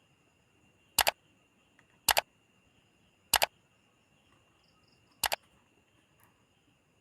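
Four sharp double clicks at uneven gaps of one to two seconds, over a faint, steady, high-pitched background tone.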